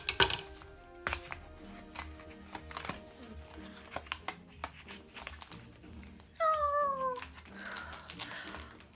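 Hands working open a small cardboard blind box, with light clicks and rustles of card and plastic, over soft background music. About six and a half seconds in, a short high-pitched cry falls in pitch for under a second.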